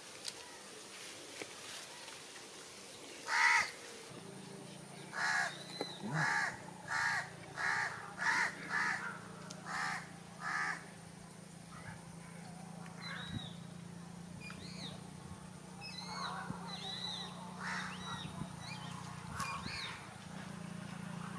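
Birds calling: a series of about nine loud, harsh calls between about three and eleven seconds in, followed by softer, short chirps. A low, steady hum starts about four seconds in.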